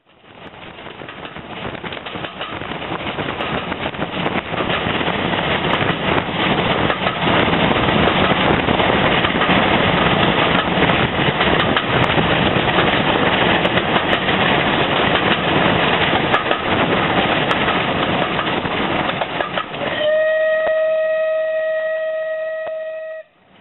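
Steam train running at speed, heard from an open carriage window behind SR rebuilt Battle of Britain class 4-6-2 34053 'Sir Keith Park', a three-cylinder Bulleid Light Pacific. It is a dense rush of rail and running noise that grows louder over the first several seconds. Near the end the locomotive's steam whistle sounds one steady note for about three seconds, then cuts off.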